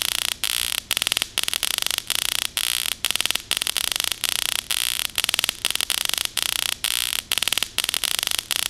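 Loud, harsh electronic static buzz, a fast rattling pulse chopped by brief dropouts several times a second, like a garbled phone line breaking up.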